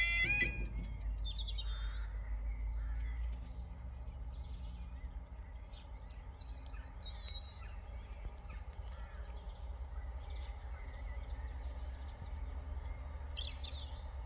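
Level crossing's warbling two-tone alarm cuts off about half a second in. After it, birds chirp and sing in short scattered calls over a low steady rumble.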